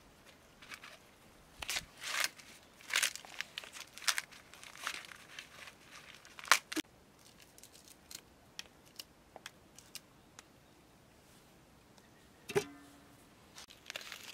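Fresh green maize husks being ripped and stripped off the ears by hand: irregular dry tearing and rustling strokes, thinning to scattered small clicks after about seven seconds. A single short knock sounds near the end.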